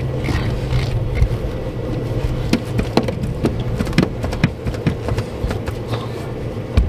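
Short clicks and scrapes of hand work on a hose clamp around a rubber hose at a plastic PEX fitting, most of them bunched near the middle, over a steady low hum.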